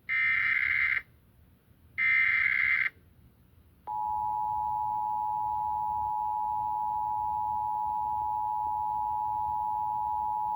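Emergency Alert System test: two buzzy digital SAME header bursts, each about a second long and a second apart, then from about four seconds in the steady two-tone EAS attention signal, two tones sounding together without a break. Heard as played through a laptop speaker.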